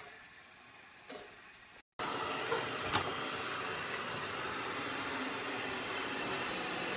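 Kilgone robot vacuum running with a steady whirring hiss, faint at first, then much louder after a sudden break about two seconds in, with a light click soon after.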